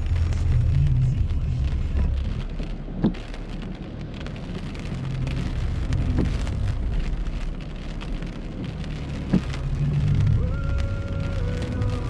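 Rain on a moving car's windshield and body, heard from inside the car over the low rumble of the engine and tyres on the wet road, with two sharp knocks about three seconds and nine seconds in.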